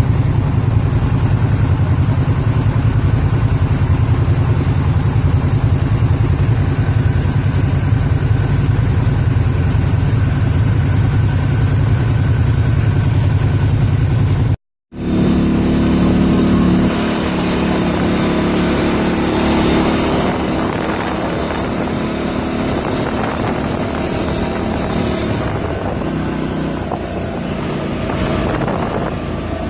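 ATV engine running as it is ridden, a steady drone that breaks off abruptly about halfway through, then resumes with a rougher, noisier engine note.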